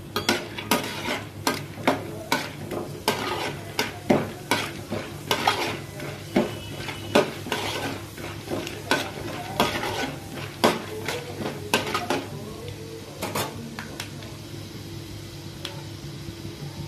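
Metal spoon clinking and scraping against an aluminium kadai as peanuts and chana dal are stirred frying in oil, with a light sizzle. The clinks come one or two a second and thin out after about thirteen seconds, leaving mostly the sizzle.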